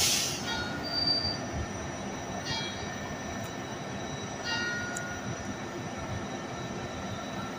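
Railway wheels squealing against the rails as a train moves slowly through the station. The high-pitched squeals come and go in short spells about every two seconds, over a steady noisy rumble.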